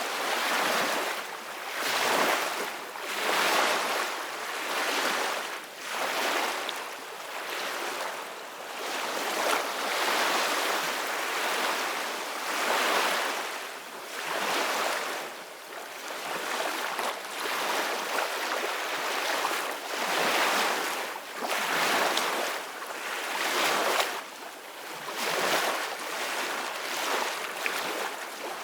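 Sea waves washing and splashing in uneven surges that swell and ease every couple of seconds, with little deep rumble.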